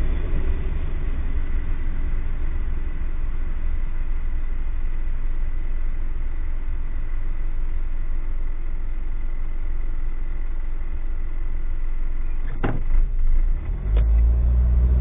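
Car engine idling, a steady low rumble heard from inside the cabin, with two sharp knocks near the end as the engine note rises and the car pulls away.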